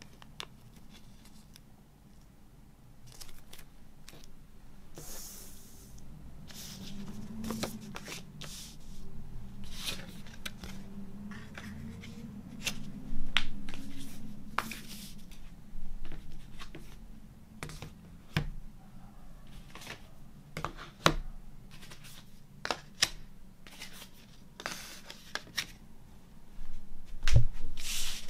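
Hands handling a small plastic zip bag and paper inserts on a wooden table: crinkling, rustling and light clicks, with a few louder knocks as items are set down near the end.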